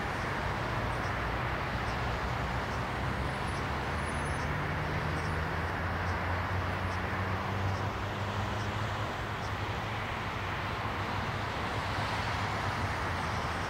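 Jet engines of a widebody twin-jet airliner landing and rolling out on a wet runway: a steady, even rushing noise over a low hum.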